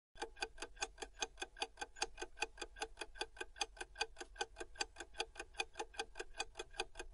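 Countdown-timer clock ticking sound effect: fast, even ticks, several a second, starting a moment in.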